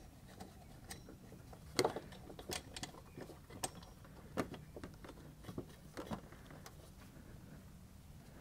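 Faint, irregular small clicks and taps of a hand working blind inside a truck bumper, threading a wing nut and washers onto a bolt through a metal heat sink.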